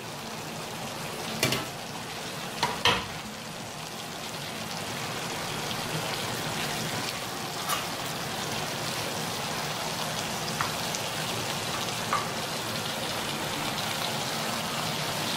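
Chicken curry sizzling in a stainless steel pan on a gas burner, a steady crackle of chicken and masala cooking in their own juices without added water, growing a little louder. A couple of sharp knocks in the first three seconds.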